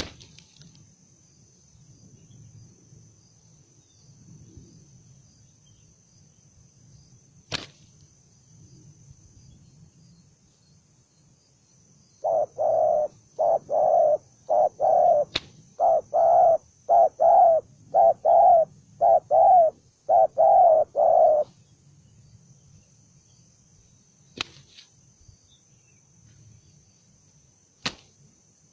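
Spotted dove cooing: a run of about a dozen low, pulsed coos over some nine seconds in the middle. A few sharp clicks come before and after, over a faint steady high whine.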